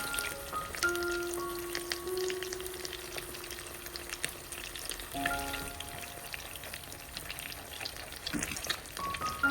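Food frying in hot oil in a pan, a steady sizzle with crackles and pops. A light melody from background music plays over it.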